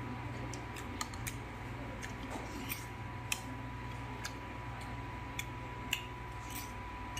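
Eating by hand: a handful of short, sharp clicks and smacks, scattered and irregular, from fingers working food in a bowl and from chewing, over a steady low hum and a faint steady tone.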